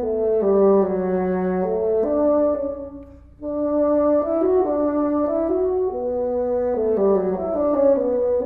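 Bassoon playing a slow melody in its low register, one note at a time, with a short break about three seconds in.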